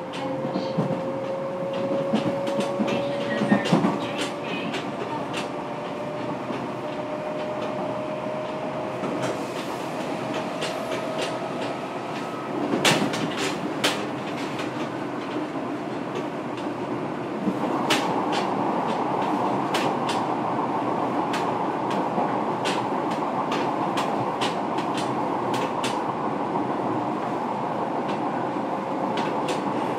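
Fukuoka City Subway 1000N series train heard from inside the passenger car while it runs. Over the first dozen seconds a thin motor whine slowly rises in pitch as the train gathers speed. About 13 s in there is a loud clatter, and from about 18 s on the running noise grows louder and steadier, with sharp wheel clicks over the rail.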